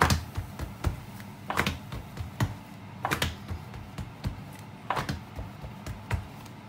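Hands patting and slapping a round of unleavened barley-flour dough flat on a wooden board: a series of soft, irregular taps, the loudest as the dough is flipped over at the start.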